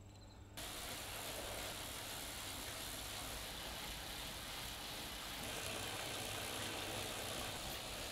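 Wahoo Kickr Snap wheel-on turbo trainer whirring steadily as the rear tyre spins on its roller, an even hiss that starts about half a second in.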